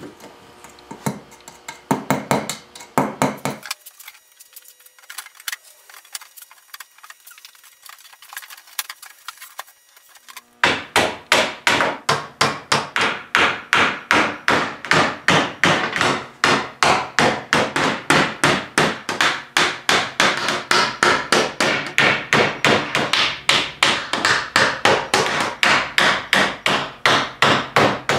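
Hammer driving small nails into the wooden back boards of a chest of drawers. A few lighter knocks come first, then after a quiet pause a steady run of hammer taps at about three a second.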